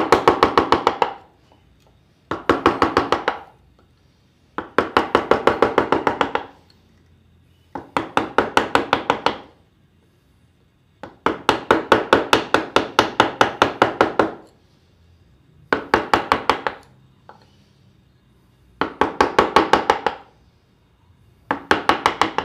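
Mallet tapping a wood chisel in quick runs of blows, several a second, with short pauses between runs. The chisel is being worked round the rim of a drilled hole in a wooden block, cutting a small chamfer.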